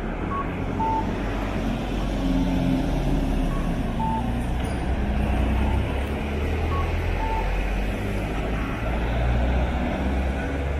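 Street traffic: motor vehicles running close by with a steady low rumble, and short high beeps now and then.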